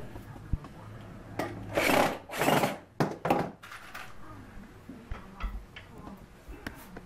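Hand-held electric drill driving screws through a wooden cleat into a walnut panel in a few short bursts about two to three seconds in, followed by lighter knocks of wood and handling.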